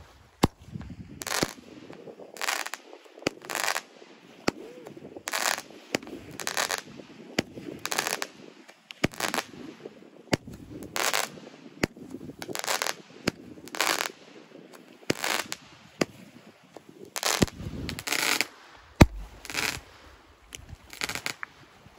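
Multi-shot firework cake set off on the ground, firing more than a dozen shots at about one a second, with sharp cracks between the louder blasts.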